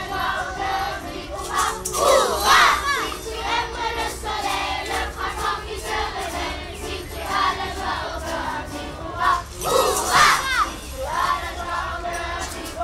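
A group of children singing together, accompanied by triangles and other hand percussion struck along with the song.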